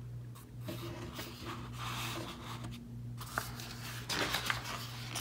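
Pages of a picture book being handled and turned: paper rustling and a hand sliding over the glossy page, with a few small clicks, over a steady low hum.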